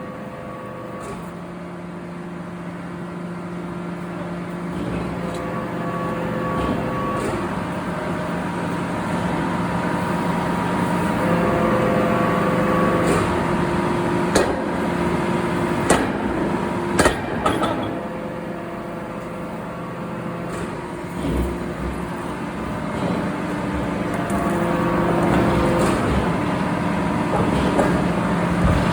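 Heavy factory machinery running steadily with a droning hum, slowly growing louder, broken by a few sharp metallic knocks.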